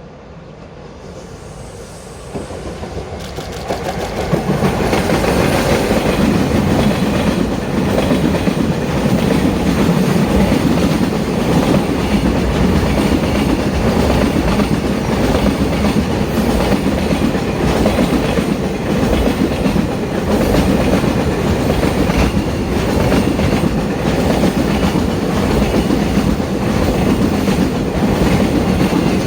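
Freight train hauled by an EF66 electric locomotive passing close by. It grows louder over the first few seconds, then runs on loud and steady, with a continuous rumble and the rapid clicking of wagon wheels over the rail joints.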